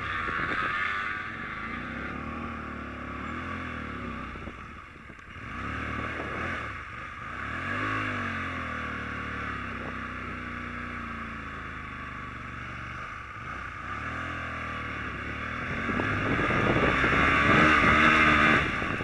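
Small 125cc motorbike engine revving up and falling back again and again while pulling uphill on grass, loudest near the end, with a steady hiss over it.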